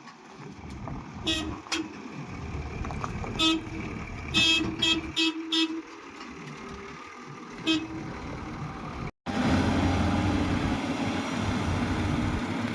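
Vehicle horn sounding in short, irregular toots, several in quick succession near the middle, over a low engine rumble. About nine seconds in the sound cuts to a steady, louder rushing noise.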